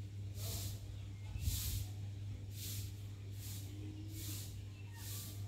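An insect calling outdoors in short, high, hissing buzzes, about one a second, over a steady low hum.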